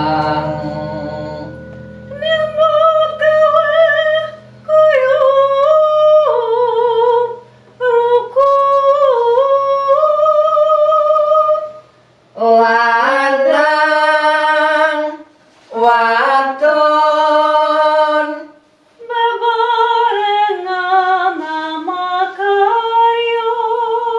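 Gamelan gongs ringing out and fading, then unaccompanied Javanese singing in short phrases with brief pauses between them. A woman's voice sings with vibrato, and a lower man's voice joins in two phrases about halfway through.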